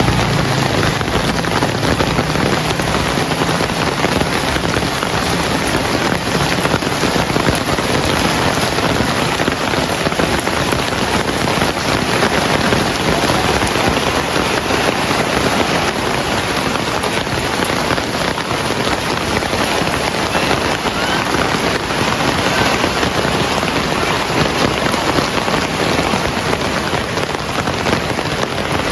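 Heavy rain falling steadily, a dense even patter. A faint low hum fades out in the first few seconds.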